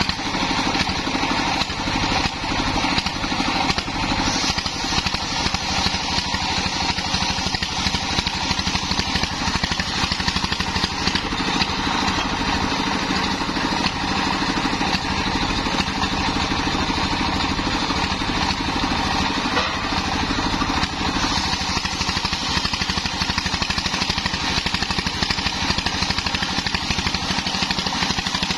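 Homemade circular sawmill running steadily: its single-cylinder stationary engine chugs at an even pace while the circular blade rips lengthwise through a waru log.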